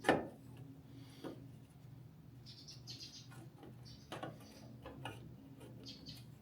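A single sharp knock, then scattered light clicks and brief high rustles over a steady low hum: parts and tools being handled.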